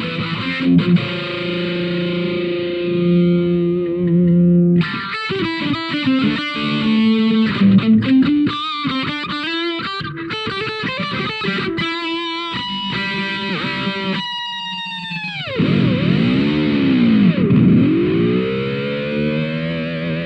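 Electric guitar played through a handmade distortion pedal: thick distorted chords are held for the first few seconds, then fast picked riffing follows. About fourteen seconds in the pitch drops away in a steep dive and swoops up and down, ending on a held chord with vibrato.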